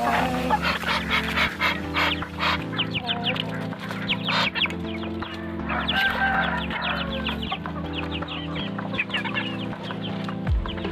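Chickens clucking, a dense run of short calls throughout.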